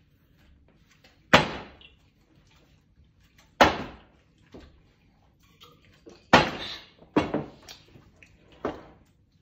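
Plastic water bottle partly filled with water, flipped and landing on a table: about six sharp thuds, each dying away quickly, two of them in quick succession about seven seconds in.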